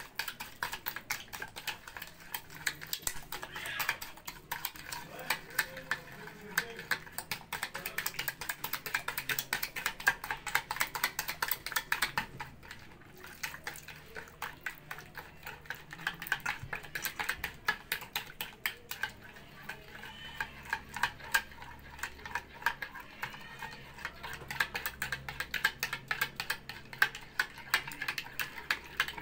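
Egg, milk and sugar being beaten by hand in a bowl: a utensil clicks and taps rapidly and continuously against the bowl's sides, with a short pause near the middle.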